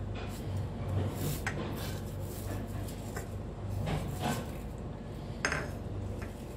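Dried fenugreek leaves being crushed and rubbed by hand over a ceramic plate: a dry, crackly rustle of leaves and fingers scraping the plate, with a few light clicks against the plate.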